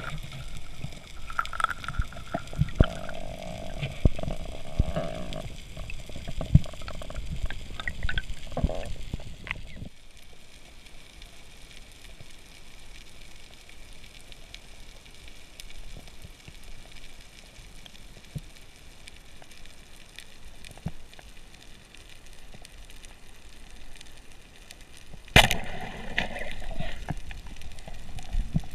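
Underwater ambience picked up by an action camera in its waterproof housing during a spearfishing dive: muffled water noise with knocks and clicks, which turns to a quieter steady hiss about ten seconds in. A sudden louder burst of bubbling and gurgling comes near the end.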